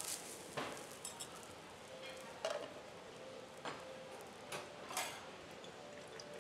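Metal spatula and utensils clinking and tapping on a steel teppanyaki griddle: about five sharp clinks scattered over a few seconds.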